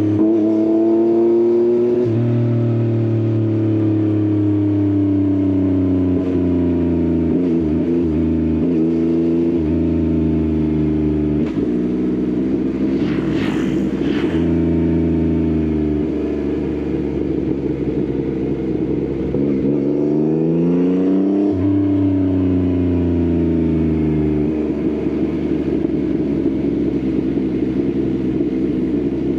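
Yamaha XSR900's three-cylinder engine through an Akrapovič exhaust, heard onboard while riding. The engine pitch steadily rises and falls with the throttle, stepping down at several gear changes, with a clear rev rise and drop about twenty seconds in.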